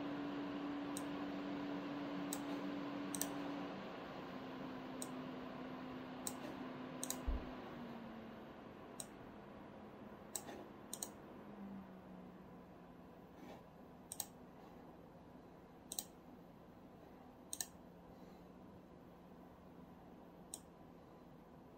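SilverStone VIDA 240 Slim AIO's slim 120 mm fans and pump running, a steady whooshing hum whose tone drops in three steps and grows quieter as the fan speed is lowered. Sharp clicks come irregularly every second or two.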